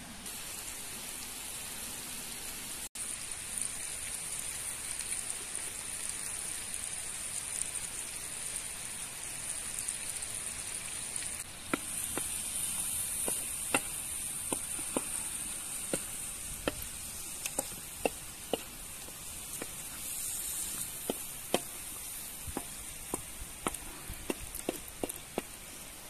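Chopped calf heart and peppers sizzling steadily in a wide black wok over a wood fire. From about halfway through, a wooden spatula stirs the food and knocks against the pan in many short, irregular clicks.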